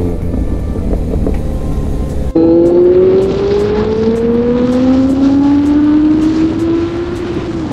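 Kawasaki Z900's inline-four engine with an aftermarket slip-on exhaust can, under way on the road. It starts with rumbling wind and road noise. After an abrupt cut about two seconds in, a strong, steady engine note climbs slowly in pitch as the bike pulls in gear, then dips slightly near the end as the throttle eases.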